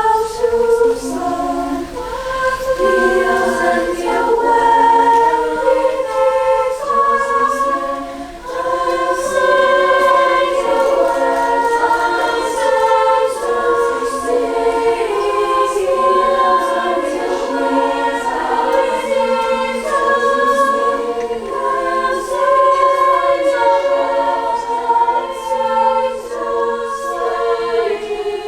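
Treble choir of sopranos and altos singing a five-part round a cappella, several overlapping vocal lines entering in turn.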